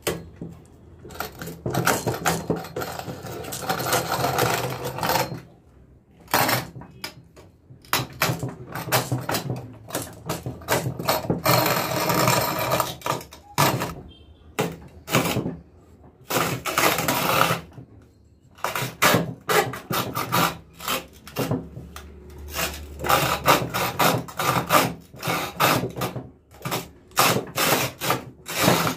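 Electric mixer grinder run in bursts of a few seconds, with glass marbles rattling and grinding inside the jar. In the second half the bursts turn into many short, quick pulses.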